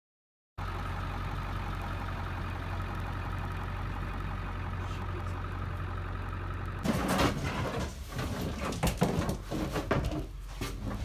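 A vehicle engine idling steadily, starting about half a second in. From about seven seconds in, irregular clattering and knocking over it as goose decoys are handled inside a trailer.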